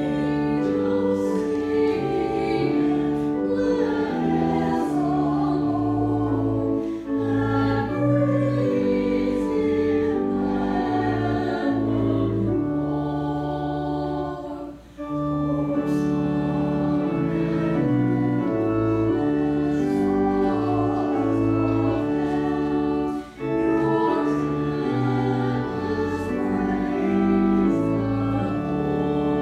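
A hymn sung by voices with organ accompaniment. It moves in sustained chords, in phrases about eight seconds long, each followed by a brief pause.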